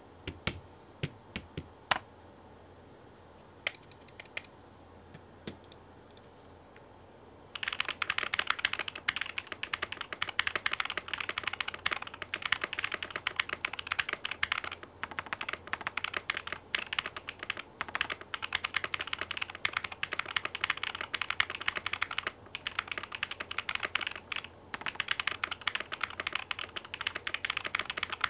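Typing test on a Zoya GMK67 mechanical keyboard fitted with swapped-in switches, Krytox 205g0-lubed stabilizers and double-shot PBT keycaps. A few single keystrokes come first, then fast continuous typing from about seven seconds in, with a few brief pauses.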